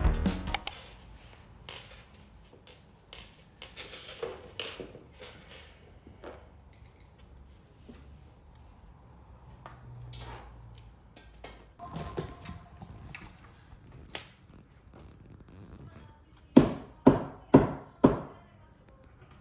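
Scattered light taps and clicks of things being handled, then four sharp knocks in quick succession near the end.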